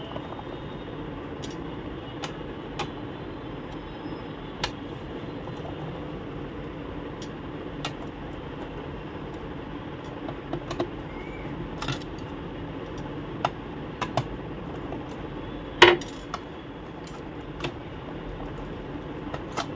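Scattered clicks and light knocks of plastic printer parts and hand tools being handled while an Epson L130's ink tank unit is unfastened and set down, with one louder knock about three-quarters of the way through. A steady fan hum runs underneath.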